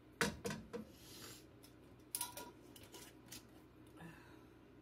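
A small cup knocked against a nonstick frying pan three times in quick succession to shake out chunks of beef tallow, then a wooden spatula tapping and scraping the tallow across the pan.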